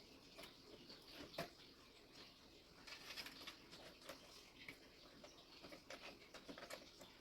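Faint rustling and small clicks of computer cables and plastic connectors being handled and pushed into place, with one sharper click about a second and a half in.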